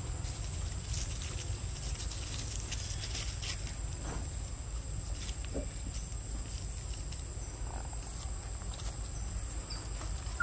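Forest ambience: a steady low rumble under a steady, thin, high-pitched insect drone, with scattered soft clicks and rustles that cluster in the first few seconds.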